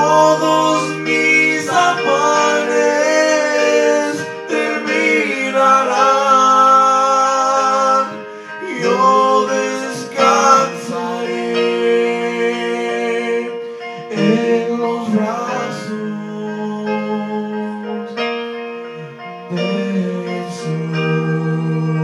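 Live Spanish-language Christian worship song: men singing into microphones over electric keyboard accompaniment, heard through a small PA.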